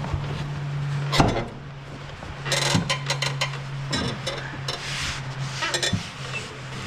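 Hand tools clinking, knocking and scraping against metal as work goes on at a stuck fastener on a riding mower, with a sharp knock about a second in and a quick run of clicks a little later. A steady low hum runs underneath.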